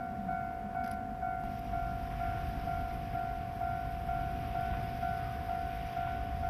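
Japanese level-crossing electronic warning bell ringing in a steady repeating pattern, a little over two rings a second, over a low rumble.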